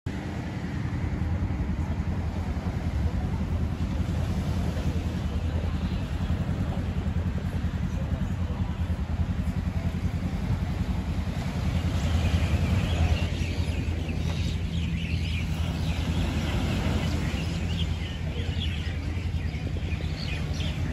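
A steady low engine hum throughout. From about twelve seconds in, birds chirp over it.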